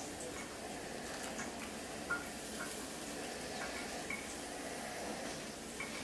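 Faint steady sizzle of a pan frying, with a few light scrapes and ticks of a butter knife spreading ranch dressing on a bun.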